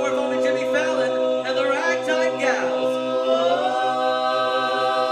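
Barbershop-style quintet of male voices singing a cappella in close harmony, holding a long chord that steps up to a new chord about three and a half seconds in.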